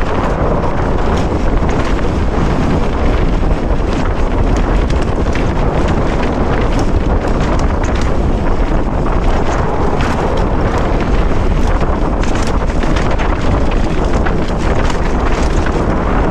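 Wind rushing over the camera microphone of a mountain bike at speed, with knobby tyres rolling over dry dirt and stones and frequent short clicks and rattles from the bike on the rough trail.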